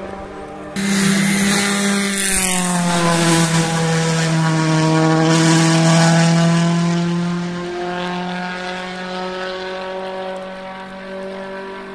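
Rally car engine running at high revs as the car drives past, its pitch dropping about two seconds in and then holding steady. It grows loudest about halfway through, then eases off.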